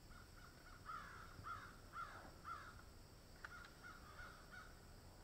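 Faint bird calls: two runs of short repeated calls, with a single sharp click between them.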